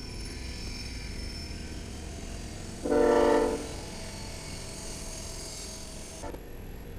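Locomotive air horn sounding one short blast, under a second long, about three seconds in, over steady low background noise.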